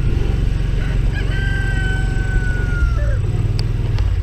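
A rooster crowing once, a long held call that drops in pitch at the end, over a steady low rumble.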